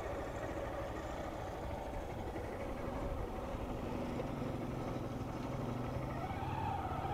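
Honda CG 160 Start motorcycle riding at low speed: its single-cylinder engine runs under a steady rush of wind and road noise. The engine hum comes through more clearly in the second half.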